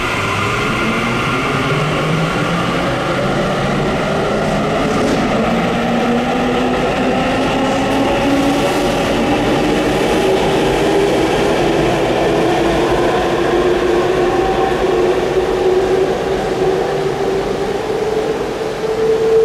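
Tokyu 5080 series electric train's Toshiba IEGT VVVF inverter whining as it pulls away, several tones climbing steadily in pitch as the train accelerates, over the rumble of the running train.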